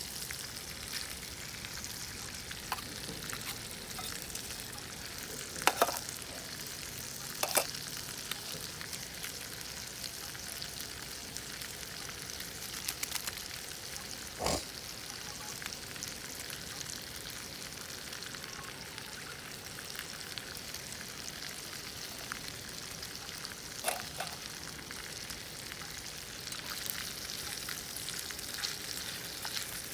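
German potatoes frying in a pan over a campfire, a steady sizzle throughout, with a few sharp knocks or pops scattered through it.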